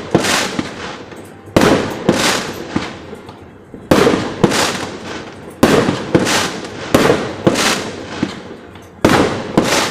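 Aerial firework shells bursting: several sharp bangs a second or two apart, each trailing off in a fading rumble with smaller pops.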